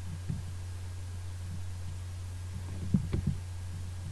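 Steady low electrical hum, with a few faint clicks about three seconds in.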